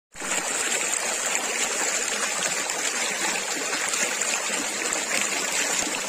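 Small mountain stream running steadily over stones, with a constant high-pitched insect chorus, such as cicadas, held above the water noise.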